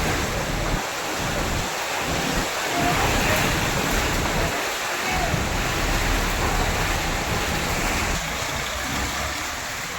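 Gusty storm wind buffeting the microphone, a low rumble that swells and drops out every second or two, over a steady rushing hiss of wind and light rain.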